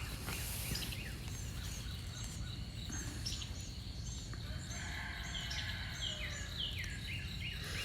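Outdoor birdsong: many quick descending chirps, growing busier in the second half, over a steady high-pitched insect drone and a low rumble of background noise.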